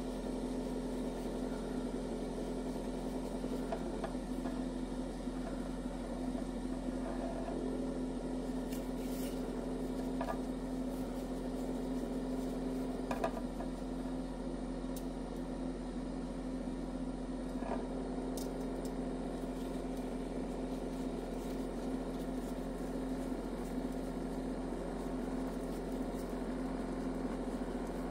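Nostalgia retro cotton candy machine running, its spinner motor giving a steady hum with a constant low tone, and a few faint ticks now and then. The heated head is spinning while the sugar melts and no floss has formed yet.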